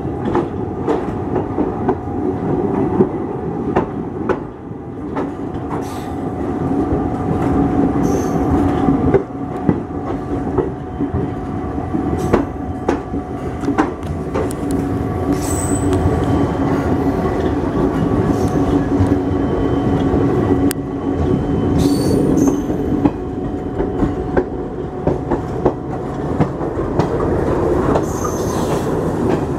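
Passenger coaches of an express train rolling and gathering speed, heard from an open coach doorway. A steady wheel rumble runs throughout, with many clicks from rail joints and a few brief high wheel squeals.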